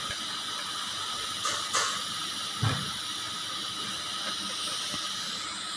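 Steady hiss of a TIG (argon) welding arc at about 60 amps on thin stainless steel pipe, with a few brief clicks and a short low thump about two to three seconds in.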